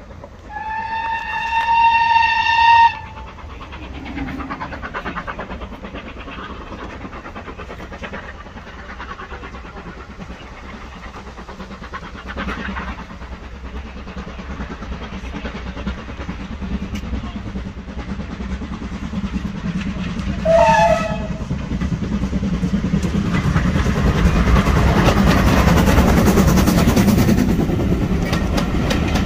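Steam locomotive sounds one long whistle blast, the loudest sound here, then approaches working hard. It gives a second short whistle about twenty seconds in and then passes close, its exhaust and the coaches' wheels clattering and growing loud near the end.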